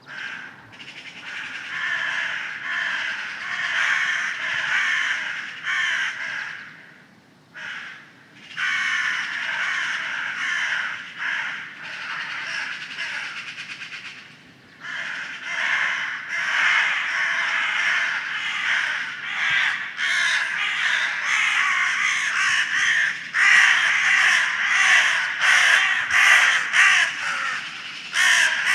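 A flock of crows cawing loudly, many harsh calls overlapping almost without a break, with brief lulls about seven and fourteen seconds in.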